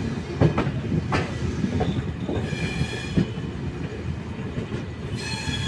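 Passenger express train rolling along a station platform, heard from an open coach door: wheels knocking over rail joints, with a high metallic squeal from the wheels twice, about halfway through and near the end.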